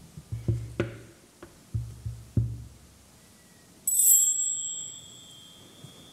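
Percussion: about six low hand-drum strokes in the first two and a half seconds, then a single bright metallic ding about four seconds in that rings on and fades.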